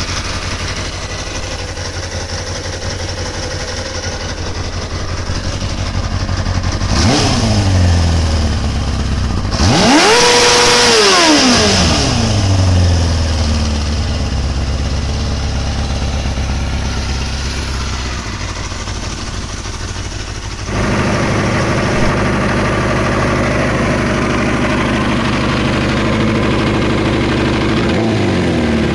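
Kawasaki ZXR400 inline-four motorcycle engine idling, blipped briefly about seven seconds in, then revved hard around ten seconds, held high for a moment and let fall back to idle. About twenty-one seconds in the sound changes abruptly to a louder idle, a switch between the stock exhaust and a Yoshimura exhaust.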